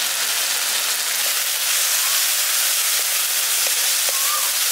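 Onion-tomato masala with ground spices frying in oil in a kadai, sizzling steadily, with a few light scrapes of a wooden spatula near the end.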